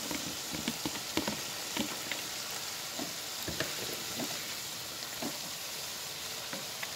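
Stir-fry of green beans, carrots, baby corn and meatballs sizzling steadily in a pan of hot oil with a little water, with a few scattered clicks and taps from stirring.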